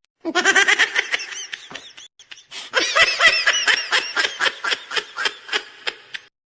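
High-pitched laughter in quick repeated 'ha-ha' pulses, in two bouts with a brief pause about two seconds in.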